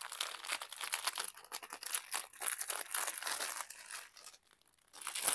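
Clear plastic bag of diamond-painting drill packets crinkling as it is handled and turned over. The crackle pauses briefly about four seconds in, then starts again near the end.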